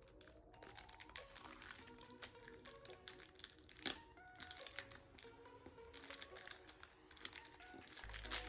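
Packaging crinkling and rustling as goods are unwrapped by hand, with one sharper click about four seconds in, over soft background music.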